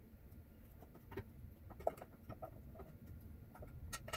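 Faint handling noises of a timing cover and its gasket being offered up to an engine block: scattered light clicks and knocks, the sharpest about two seconds in and a couple more near the end, with a few brief squeaks.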